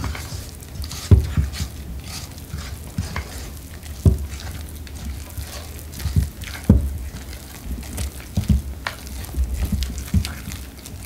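A spatula stirring thick canned pumpkin purée and instant pudding powder in a mixing bowl. It makes a wet scraping sound, with irregular knocks of the spatula against the bowl every second or two as the mixture thickens.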